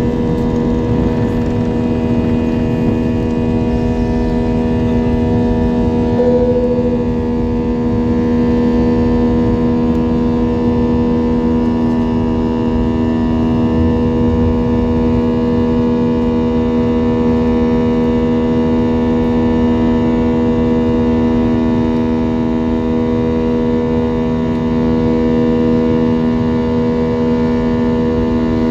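Airliner's jet engines at takeoff thrust heard from inside the cabin: a loud, steady drone with several steady tones over a low rumble as the plane lifts off and climbs.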